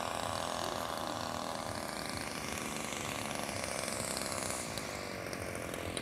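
Engine of a radio-controlled Yak 54 model aerobatic plane running steadily on its landing approach, its pitch drifting up and down.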